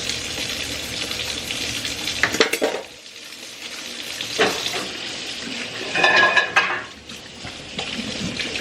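Kitchen sounds: a steady hiss for the first few seconds, then dishes and utensils knocking and clattering, loudest about six seconds in.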